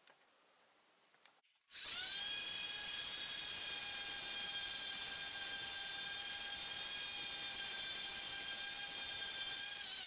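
Random orbital sander switching on about two seconds in, rising quickly to speed, then running steadily with a high whine as it sands a board of wood strips and cured resin.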